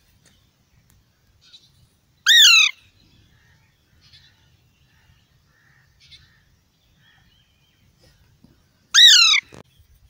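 Juvenile Alexandrine parakeet giving two loud, harsh squawks, each about half a second long, one about two seconds in and one near the end, with faint soft chirps between them.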